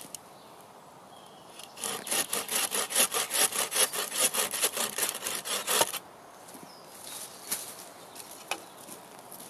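Hand bow saw cutting across a thick branch: quick, even back-and-forth strokes for about four seconds, starting about two seconds in and stopping about six seconds in.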